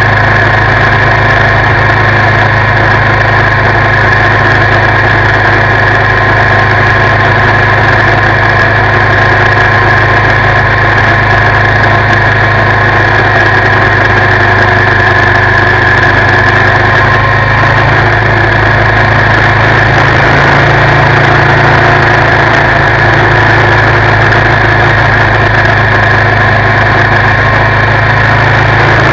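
2019 Suzuki V-Strom 650's 645 cc V-twin engine running steadily while the motorcycle rides along at a constant pace, heard close up from the front crash bar. The engine note shifts slightly about two-thirds of the way through.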